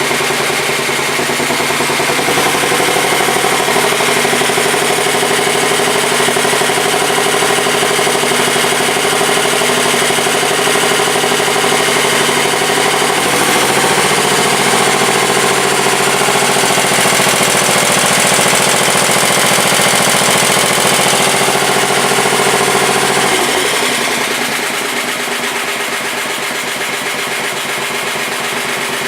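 1967 Sears Suburban 10 garden tractor engine running steadily at raised throttle, then throttled down to a lower, quieter speed about 23 seconds in. It is being run faster so that the generator charges the battery.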